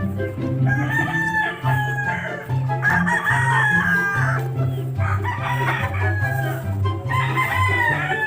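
Gamecocks crowing four times in a row, each crow a little over a second long, over background music with a steady low bass line.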